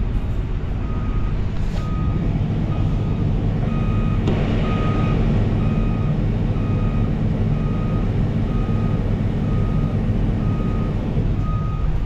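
Tractor engine running steadily, heard from inside its cab, with a combine harvester working alongside. An electronic warning beeper sounds a short, high beep about every three-quarters of a second.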